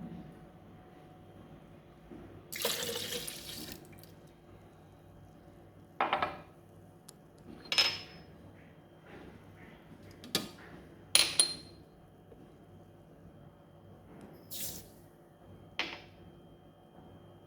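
Kitchen prep sounds: liquid pouring for about a second near the start, then a series of short clinks and knocks of dishes and utensils, a few of them ringing like glass or ceramic.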